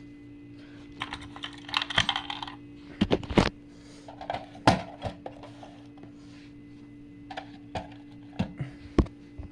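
Scattered clicks and clattering of hard plastic and metal fire alarm devices being handled, in small clusters with short gaps between them. A faint steady hum runs underneath.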